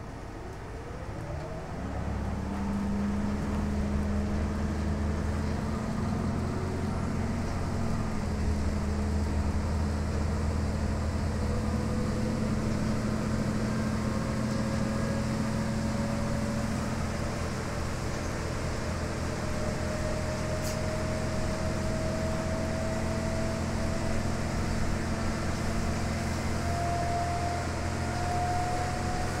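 Inside a 2011 New Flyer DE60LFR diesel-electric hybrid articulated bus with an Allison EP50 hybrid drive as it pulls away and gathers speed. A whine rises in pitch at the start, and the diesel engine comes in loudly about two seconds in with a steady low drone. A second whine climbs slowly in pitch as the bus speeds up.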